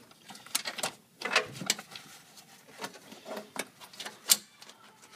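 Scattered light clicks and knocks of plastic parts being handled, at irregular intervals, with one sharper click about four seconds in.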